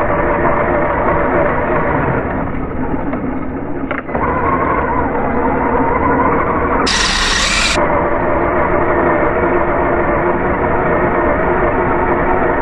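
Remote-control car's motor and drivetrain running steadily, heard through the GoPro mounted on the car. It eases off from about two to four seconds in, and a short burst of hiss comes about seven seconds in.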